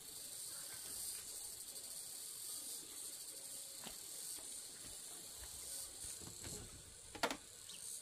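A steady, high-pitched chorus of insects chirring, with a single sharp knock near the end.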